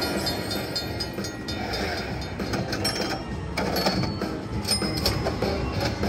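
Cash Express Luxury Line Buffalo slot machine playing its steam-train sound effect through its speakers: a locomotive running with a steady rhythmic clatter, the sound of its train bonus feature.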